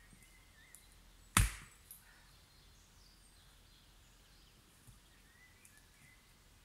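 A single sharp axe strike splitting a log of firewood, followed about half a second later by a smaller knock.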